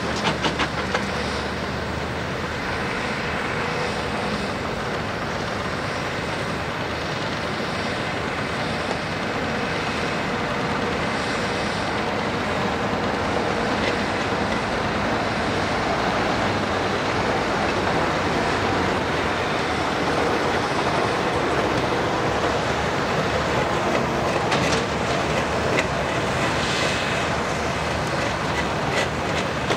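International Harvester 3588 2+2 tractor's DT-466B six-cylinder turbo diesel running steadily as the tractor drives along, with a few sharp clicks near the start.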